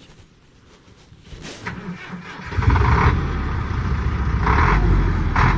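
Truck diesel engine starting about two and a half seconds in, then running steadily, with a few short bursts of hiss over it.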